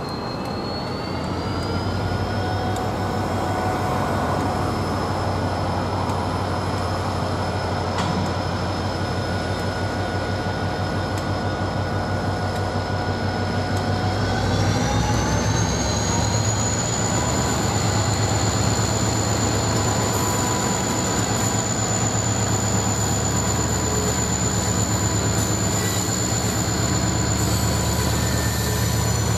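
KiwiRail DFB-class diesel-electric locomotive hauling a work train as it approaches: a steady low engine drone with a whine whose pitch steps up twice, about a second in and again about halfway through, as the locomotive works harder.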